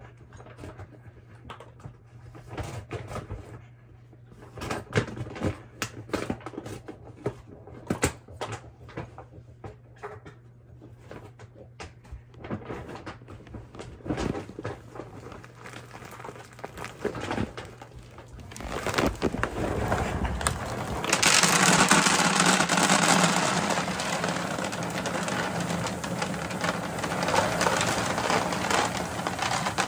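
Dry dog kibble pouring from a bag into a plastic storage bin: a dense rattling rush that starts about two-thirds of the way in and stays loud. Before it come scattered clicks and knocks.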